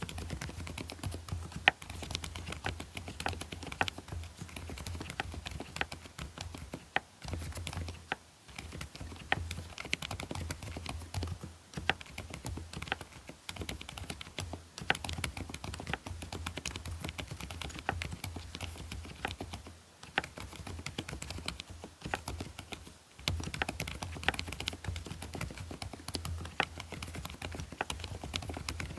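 Typing on a custom mechanical keyboard with hand-lubricated Outemu Peach v1 silent linear switches: a continuous run of rapid, soft keystrokes, broken by a few short pauses.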